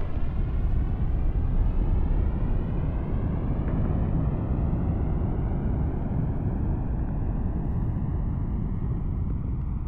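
Rocket engine at liftoff: a loud, deep, steady roar of exhaust noise with a slow rising, sweeping whoosh running through it as the rocket climbs, easing off slightly toward the end.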